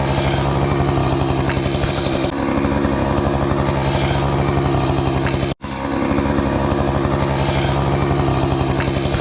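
Small gasoline engine running at a steady speed without revving, cut off for an instant about halfway through.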